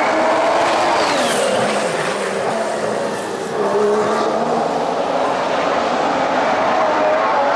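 2014 Formula One car's 1.6-litre turbocharged V6 engine running hard. Its pitch drops a second or so in, dips lowest around three and a half seconds, then climbs steadily again.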